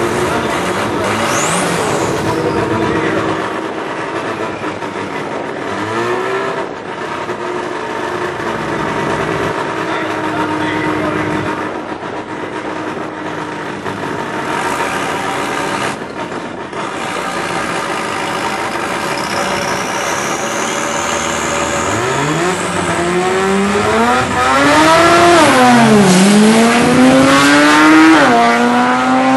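Drag car engine running at the starting line with small revs, then launched hard: the pitch climbs steeply and drops twice near the end as it shifts up through the gears under full acceleration.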